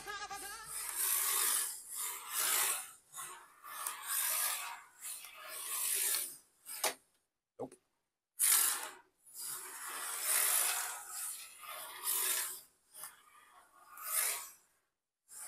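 Turbo Racing C65 micro RC car's small electric motor and tyres scrubbing on a wooden surface, in irregular bursts of a second or so as it accelerates, slides and stops, with short silent gaps between.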